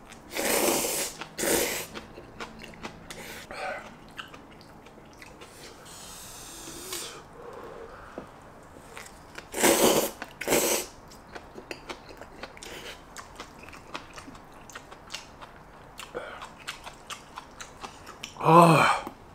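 Slurping instant jjajang noodles in black bean sauce, with wet chewing clicks between bites. Loud slurps come about a second in and again about ten seconds in, and a short vocal sound comes near the end.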